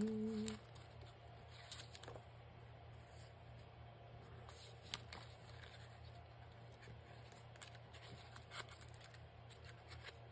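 Sheets of decorative paper being handled and leafed through: faint scattered rustles and small taps, over a low steady hum.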